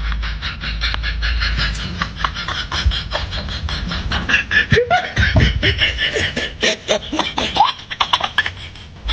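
A man making exaggerated comic snoring and mouth noises: a fast, uneven run of clicks and pops, with short squeaky whistles sliding up and down in the middle.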